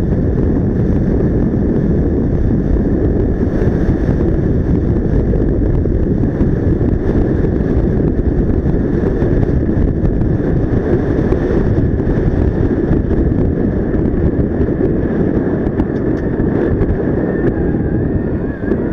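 Steady wind rush over the microphone of a Yamaha XMAX scooter riding at road speed, mixed with the scooter running underneath.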